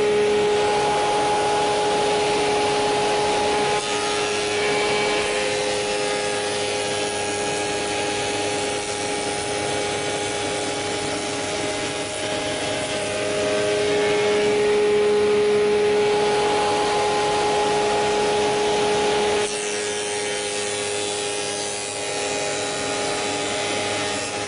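Spindle moulder running with a steady whine while its cutter raises the edges of a wooden panel fed past it. The cutting noise swells and eases as the panel is pushed through, and drops off noticeably near the end.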